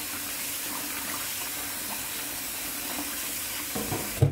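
Water running steadily from a kitchen tap into a stainless steel sink as beans are rinsed in a bowl. Near the end there is a knock, and the water cuts off suddenly.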